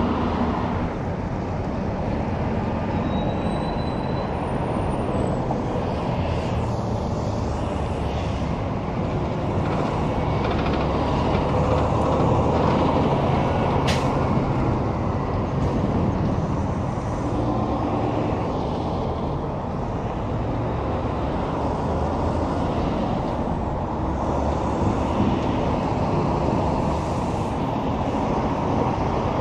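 Highway traffic with semi trucks: heavy diesel engines running and tyre noise from passing vehicles, steady throughout, with one sharp click about halfway through.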